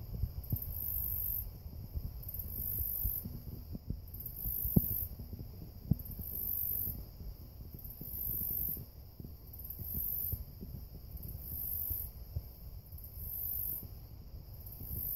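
Insect song: a very high-pitched buzz in pulses just under a second long, repeating every second and a half or so, over a low rumble with a couple of sharp knocks near the middle.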